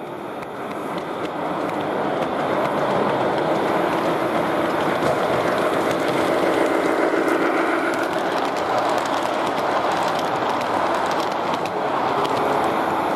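Large-scale model diesel locomotive running along the track, its motor and wheels rolling on the rails, growing louder over the first couple of seconds as it comes near and then holding steady.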